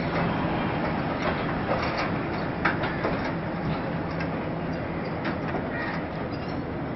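Passenger coaches of an arriving express train rolling past: a steady rumble of wheels on rail, with scattered clicks and knocks from the wheels over rail joints. It grows gradually quieter.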